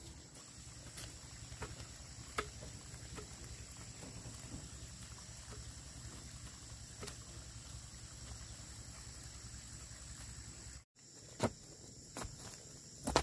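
Long bamboo dibble sticks knocking into dry, burned ground as holes are poked for rice seed, a scattered run of short knocks with the crunch of charred debris. Underneath is a steady high insect drone and a low rumble. After a short break in the sound near the end the knocks come louder and closer.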